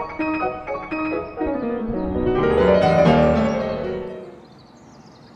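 Background music: solo classical piano playing a run of notes that swells, then fades out about four seconds in.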